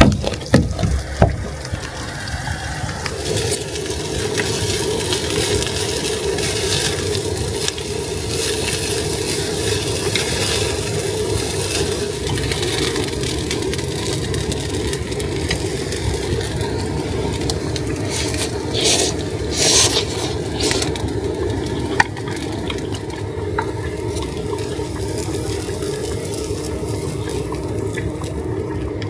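Food sizzling steadily in a frying pan, with occasional scrapes and clicks of stirring and a few louder spells of sizzling.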